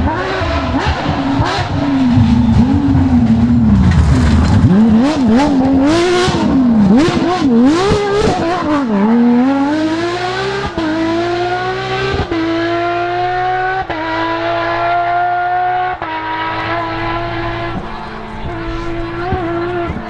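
Porsche 997 GT3 rally car's flat-six engine at full throttle, its revs swinging up and down through a loose-surface corner with several sharp cracks. About halfway through it accelerates away, changing up through four gears as it fades.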